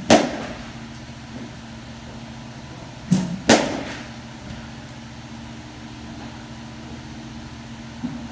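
Two softball hits about three and a half seconds apart, each a quick click followed a moment later by the louder crack of the bat meeting the softball, with a short ringing tail. A steady low hum runs underneath.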